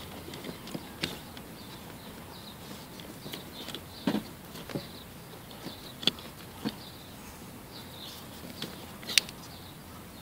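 Electrical tape being wrapped around spliced car wiring by hand: scattered light clicks and rustles, the sharpest one near the end.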